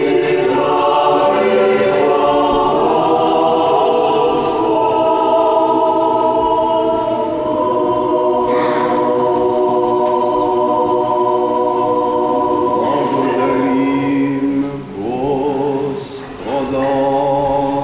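Church choir singing an Orthodox liturgical chant a cappella, several voices holding slow sustained chords. It breaks briefly between phrases about 15 and 16 seconds in.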